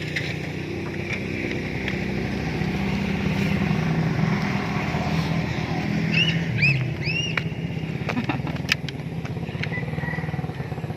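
Small motorcycle engine running steadily under way, with a few short chirps about six to seven seconds in and a couple of sharp clicks later.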